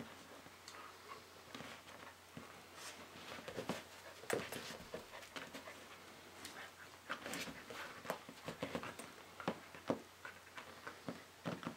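A dog taking treats from a hand and shifting its feet on a metal pet bowl and soft balls: irregular clicks, taps and chewing sounds, busiest through the middle.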